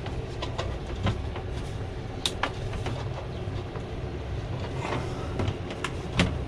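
MaxxFan RV roof vent fan running steadily, a low hum with rushing air. Several light plastic clicks sound as the screen's retaining clips are turned by hand.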